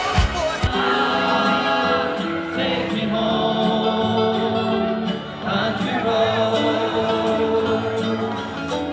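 Music: a thumping dance beat stops less than a second in and gives way to a slow song of long held sung notes with choir-like vocals.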